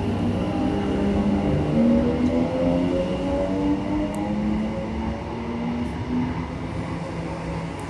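Greater Anglia Class 321 electric multiple unit moving past at close range, its traction motors whining in several tones that rise in pitch as it gathers speed, over a steady rumble of wheels on rail.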